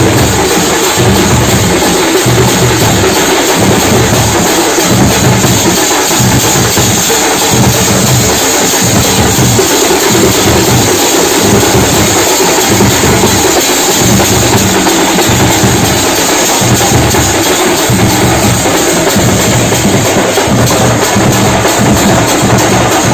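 Festival drums beaten with sticks, played loud and continuously in a steady pounding rhythm with heavy low beats.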